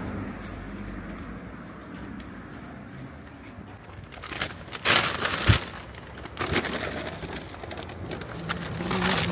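Rustling and handling noise with a few knocks as goods are loaded into a car's boot, loudest in a cluster of knocks about five seconds in.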